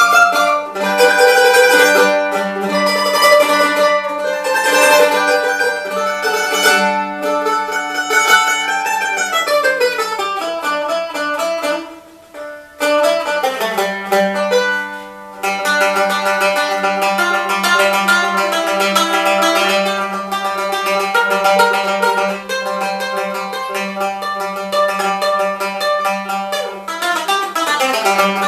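Restored 1905 Calace mandolin played solo: a plucked melody with long stretches of rapidly repeated picked notes and falling scale runs near the middle and near the end, with a brief pause about twelve seconds in.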